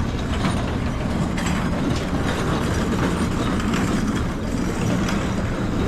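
Steady low rumble of a moving vehicle heard from inside, with irregular clicks and rattles over it.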